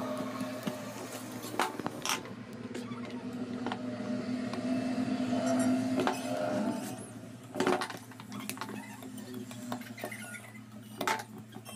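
Hand screwdriver working screws into an angle grinder's plastic housing: scraping and turning, with a few sharp clicks and knocks of metal against plastic, over a steady low hum.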